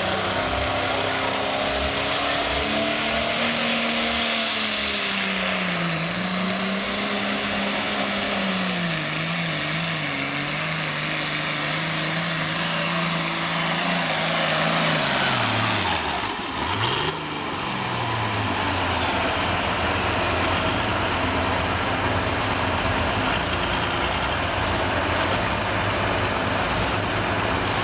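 Turbocharged Allis-Chalmers D21 diesel pulling tractor at full power during a pull, its engine running hard under load with a high turbo whistle that rises over the first few seconds and holds. About 15 seconds in the whistle falls away and the engine drops off, then settles into a low, steady idle once the pull is over.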